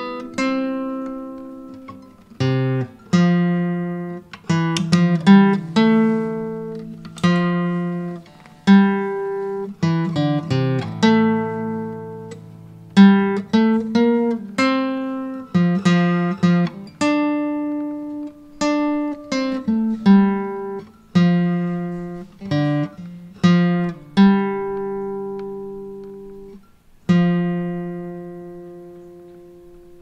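Background music on a solo acoustic guitar: unhurried plucked notes and chords, each ringing out and fading. It ends on a long note that dies away over the last few seconds.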